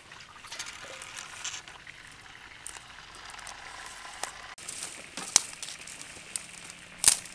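Water spinach stems rustling and snapping with light crackles as they are broken by hand. After about four and a half seconds, a few sharp knocks, the loudest near the end, as hollow clay bricks are set down.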